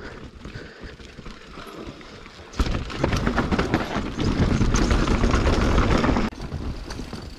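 Mountain bike riding down a rough natural trail: tyres rolling over roots and stones, with the bike rattling and clicking. About two and a half seconds in, a louder stretch of rushing noise and clatter sets in, lasting nearly four seconds before it eases off.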